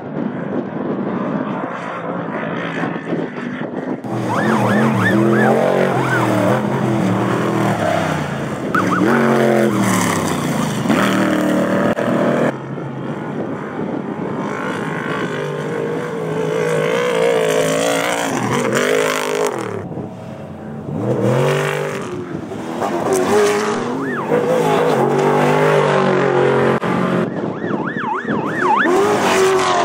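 Off-road race vehicles' engines revving hard, rising and falling in pitch again and again as they run past at speed.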